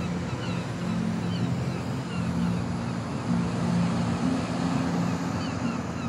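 Surf and wind on a wide tidal beach at low tide, a steady wash of sea noise, with a low steady hum underneath and short high chirps scattered throughout.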